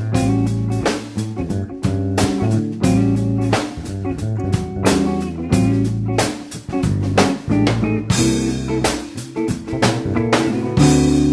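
Background music with a steady drum beat, bass and electric guitar, in a blues-rock style.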